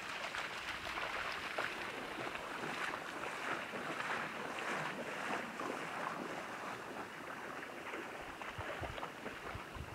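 Lake water splashing and trickling as hands and arms are washed in it, an irregular stream of small splashes.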